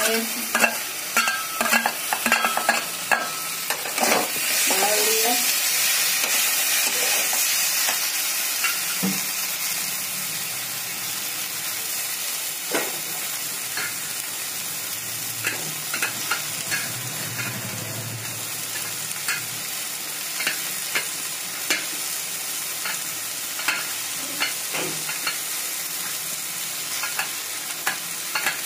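Yardlong beans, potatoes and tomatoes sizzling in oil in a metal kadhai while a flat metal spatula stirs them, scraping and clicking against the pan. The scraping and clatter are busiest in the first few seconds, then the sizzle runs on steadily with occasional clinks.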